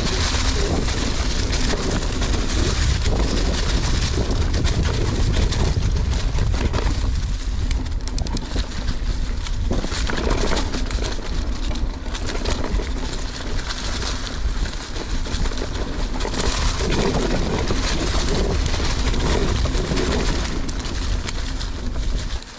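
Mountain bike riding a dirt trail, heard through an action camera: steady wind rumble on the microphone over tyre noise, with occasional knocks and rattles from the bike.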